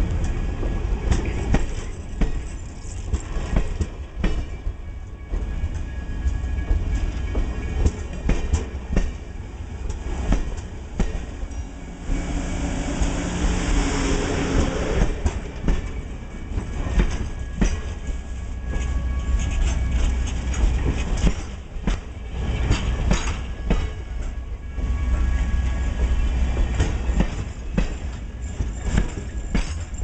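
Passenger railroad cars rolling past close by, their steel wheels clacking irregularly over rail joints over a steady low rumble.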